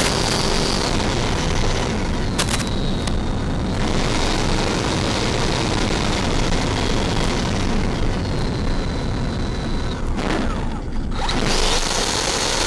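Wind rushing and buffeting over an onboard microphone on a Freewing F-5 model jet in fast flight, with a faint high whine from its electric ducted fans. The rush eases briefly about ten seconds in.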